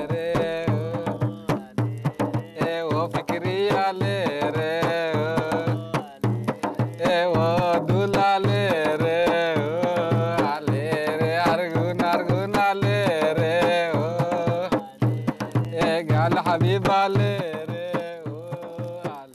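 A voice singing a wavering, ornamented melody over a steady hand-drum beat, live music played around a campfire.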